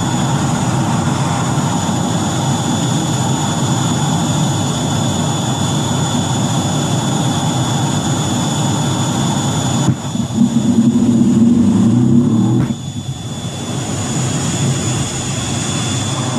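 F-18's twin jet engines running at high power in the cockpit, with a steady high whine over the noise. About ten seconds in, a sharp click and a louder low rumble for about two and a half seconds: the catapult launch. The rumble then falls away suddenly.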